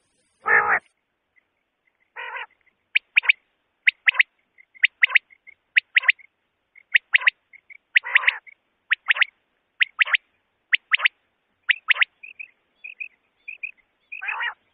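Common quail calling: short, sharp, high notes in quick pairs, repeated about once a second, with a few longer, lower, rougher notes among them.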